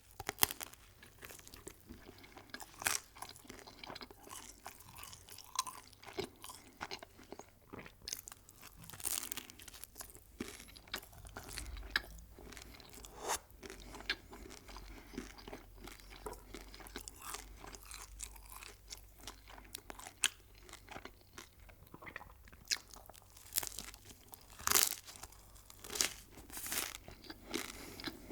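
Close-miked eating of crisp food: irregular crunchy bites and chewing, with sharp crackles scattered throughout and one of the loudest crunches near the end.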